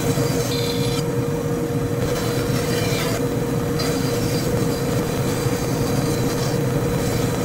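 Band saw running and cutting through plywood: a steady machine hum with a constant tone, and a rasping cut that swells and eases as the piece is fed and turned.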